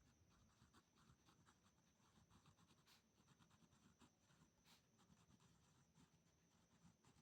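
Near silence, with the faint scratching of a pen writing.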